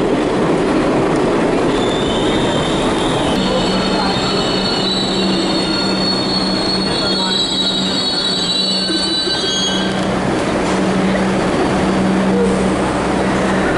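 Rail train running with a loud, steady rumble. Its metal wheels squeal in high, shifting tones from about two seconds in until about ten seconds in, and a steady hum starts about three seconds in.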